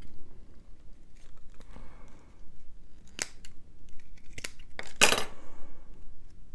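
Small scissors snipping the price tag off a bottle-brush Christmas tree: a few sharp snips and clicks, the loudest about five seconds in.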